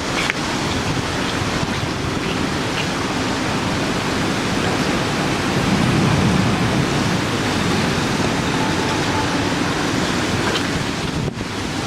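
Steady rushing noise of a storm, swelling slightly about halfway through.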